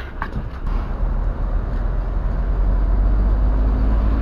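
Diesel engine of a fire engine idling, a low steady rumble that grows louder about three seconds in, with a few light clicks at the start.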